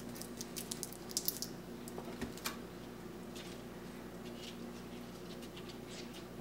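Faint light clicks and taps of kitchen handling, most of them in the first two or three seconds, as a silicone spatula spreads barbecue sauce over a meatloaf in a disposable foil pan. A steady low hum runs underneath.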